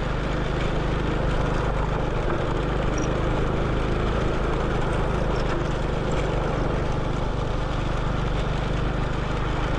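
Motorcycle engine running at a steady speed while riding, with a constant rush of wind over the microphone.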